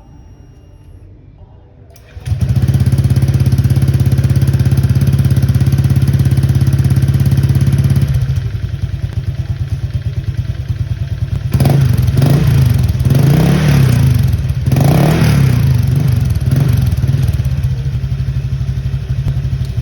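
Honda Click 125i scooter's single-cylinder engine through a Racing Monkey HUN aftermarket exhaust pipe, starting suddenly about two seconds in and running at a fast idle, then settling to a lower, pulsing idle. From about twelve to seventeen seconds it is revved in several quick throttle blips before dropping back to idle.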